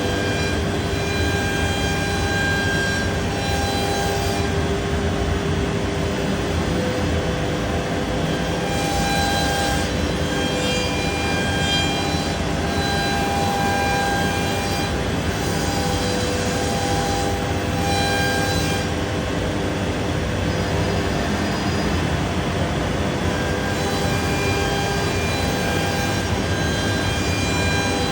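Biesse Rover K CNC router milling solid wood: a steady spindle whine over an even rushing cutting noise, the whine's pitch shifting every few seconds as the cut changes.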